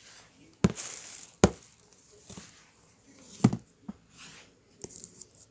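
A handful of sharp knocks and clatters, with light rustling between them: things being handled and set down. The two loudest knocks come about a second and a half in and again about three and a half seconds in.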